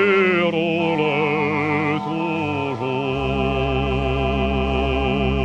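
Male singer holding long sung notes with a wide vibrato on the word 'roules', over a sustained instrumental accompaniment; a deep bass note enters about three seconds in.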